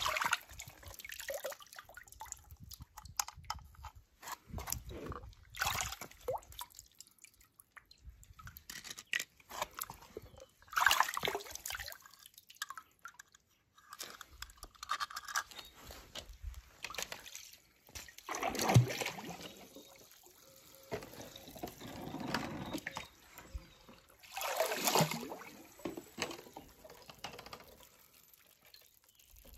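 Small toy cars being handled in water: dripping and sloshing with light plastic clicks and knocks, and a few louder splashes spread through.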